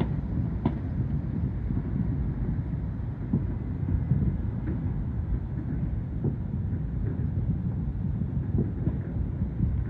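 Thousands of distant fireworks merging into an unending low rumble, a 'rolling thunder', with sharper individual pops and bangs standing out now and then, the clearest a little under a second in.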